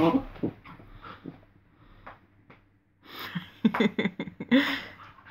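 Two dogs play-fighting, mouthing at each other's faces and growling. A growl cuts off just after the start, soft scuffles follow, and a louder bout of growling and snarling begins about three seconds in.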